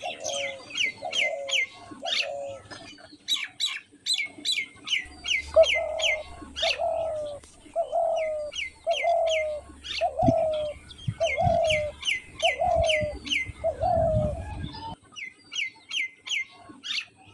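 A dove cooing in a series of short notes, roughly one a second, while small birds chirp rapidly and continuously over it. The cooing stops a couple of seconds before the end, with a few low thumps in its last few seconds.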